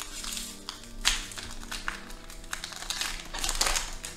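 Foil booster-pack wrapper crinkling and tearing open in several short bursts, over steady background music.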